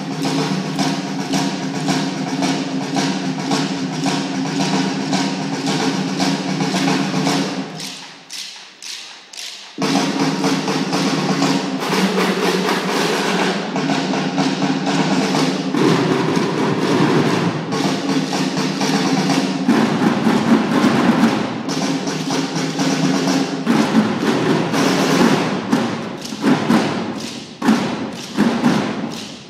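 A massed student drumline playing snare drums in rhythm together with sustained band music. It drops away briefly about eight seconds in, then comes back, with sharp separate hits near the end.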